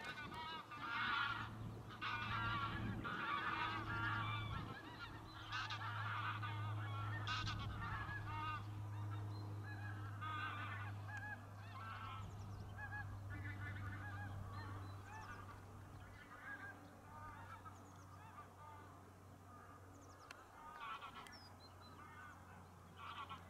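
A flock of geese flying overhead, many birds honking at once in a dense, overlapping chorus that thins out and grows fainter during the second half.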